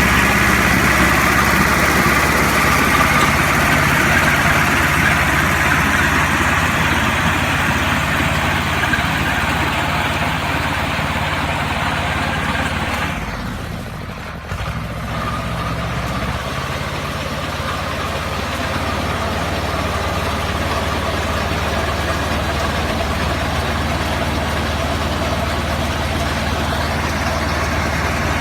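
Tractor engine running steadily while working a mounted mini round baler, with a constant mechanical drone; it drops in level briefly about halfway through, then comes back abruptly.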